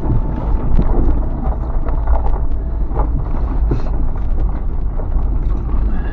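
A vehicle's engine and tyres on a rough, snowy dirt trail, heard from inside the cab: a steady low rumble with scattered knocks and clicks as it goes over bumps.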